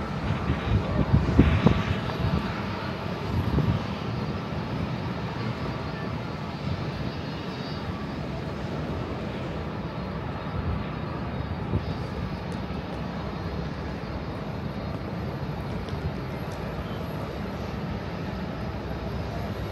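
Jet airliner engines running on the airfield below, heard as a steady, continuous hum. A low rumble swells in the first few seconds.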